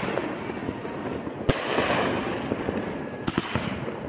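Fireworks going off: dense crackling studded with sharp pops, in short clips cut together.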